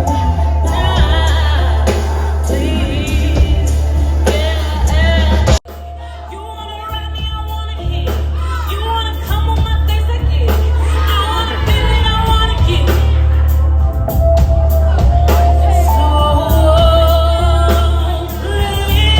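Live band music with a lead vocalist singing over heavy bass and drums. About five and a half seconds in the sound drops out abruptly, then comes back quieter and builds up again.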